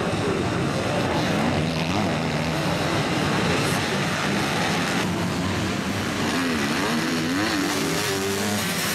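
Several motocross bikes' engines revving hard on track, their pitch rising and falling over and over with throttle and gear changes.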